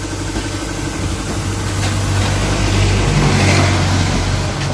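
Air compressor running with a steady, low motor hum, powering the spray gun used for touching up the bumper paint.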